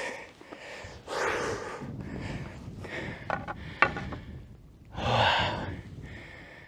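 A hiker breathing hard while climbing, with two loud breaths about a second in and about five seconds in, and a few sharp clicks between them.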